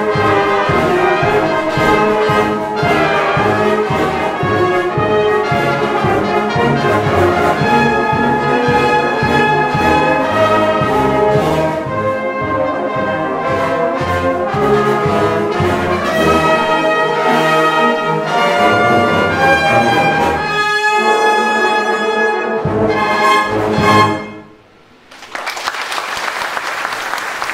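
Brass band of cornets, horns, euphoniums and tubas with percussion playing a piece through to its close. Near the end the music stops on a final chord, and after a brief pause applause breaks out.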